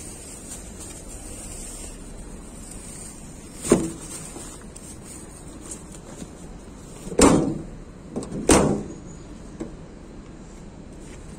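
Three sharp knocks, the first alone and the last two just over a second apart, over a steady background hiss with a faint high whine.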